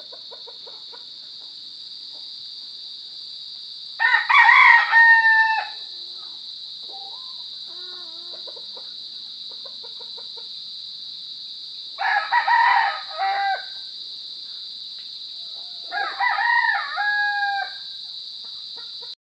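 Crickets chirring in a continuous high-pitched chorus, over which a rooster crows three times, each crow lasting about a second and a half. Softer, lower calls come between the crows.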